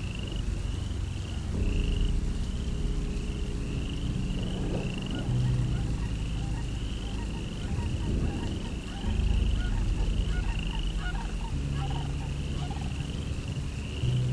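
Nature ambience: a short high chirping call repeats about one and a half times a second over a low droning hum whose pitch shifts every few seconds, with a few fainter chirps joining in the second half.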